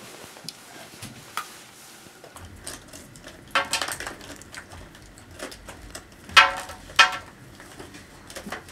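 Crayons clattering against each other and a clear plastic tub as a hand rummages through it: scattered small clicks and a few louder rattling bursts, the loudest about six and seven seconds in.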